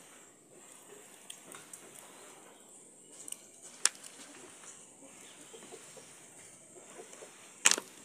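Plastic seasoning tub handled and squeezed as thick green seasoning is tipped out onto a fish in a stainless steel bowl: quiet handling noise with small ticks and two sharp clicks, one about four seconds in and a louder one near the end, over a steady high hiss.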